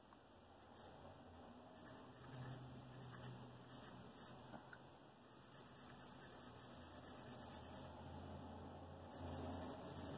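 Faint scratching of a chunky charcoal stick stroked repeatedly across sketchbook paper, blocking in shading.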